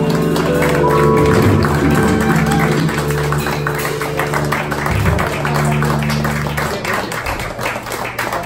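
Cello, keyboard, upright bass and drums holding the song's final chord, which cuts off about seven seconds in, while the audience claps over it.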